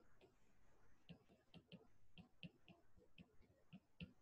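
Faint, irregular clicks of a stylus tapping on a writing tablet as letters are handwritten, a few clicks a second.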